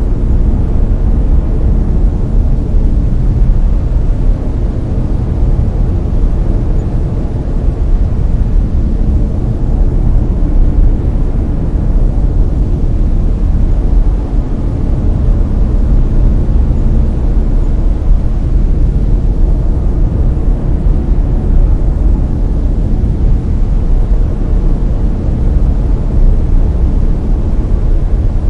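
Steady, loud brown noise: an even, deep rumbling hiss, strongest in the bass and thinning toward the treble, with no changes or events.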